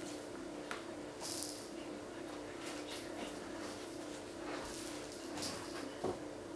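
Bengal kitten biting, pawing and kicking a fabric toy, giving short irregular bursts of rustling, three main bouts with the longest near the end.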